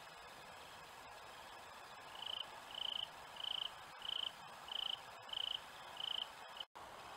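Insect chirping: short high-pitched chirps repeating about one and a half times a second, starting about two seconds in, over a steady hiss. The sound cuts out for an instant near the end.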